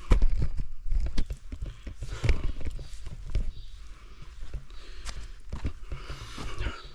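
Footsteps scrabbling up a steep rocky slope: irregular knocks and crunches of shoes on rock and loose stones, the loudest just after the start and about two seconds in, over a low rumble.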